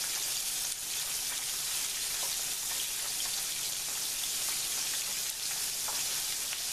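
Flour-battered bacon strips deep-frying in hot grease: a steady, dense crackling sizzle.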